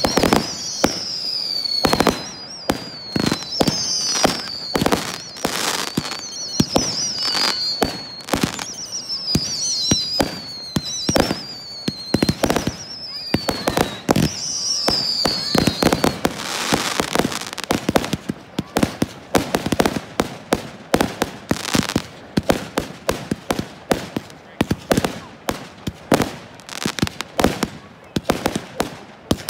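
Fireworks display: a constant run of bangs from bursting aerial shells. Through the first half, high warbling whistles fall in pitch about every second and a half. Later, dense rapid crackling and popping takes over.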